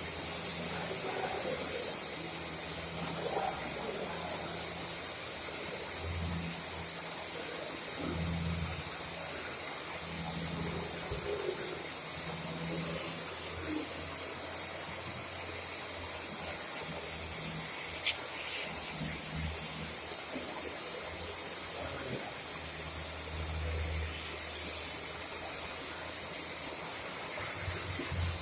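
Steady hiss of a gas brazing torch flame on AC copper pipe, with a low hum that rises and falls every few seconds.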